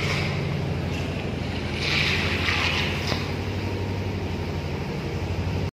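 A pump motor running steadily with a low, evenly pulsing hum, joined by a rushing hiss that swells about two seconds in. The sound cuts off abruptly near the end.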